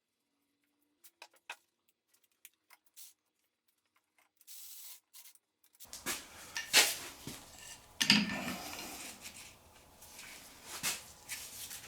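Metal tools clinking and scraping on a harmonic balancer puller and the crank bolt of a Ford 4.0L V6, with a few faint clicks at first, then busier metal clatter and two sharp knocks in the second half.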